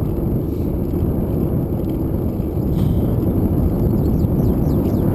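Steady low rush of wind on the microphone and bicycle tyres rolling on asphalt while riding. A few faint high chirps come in near the end.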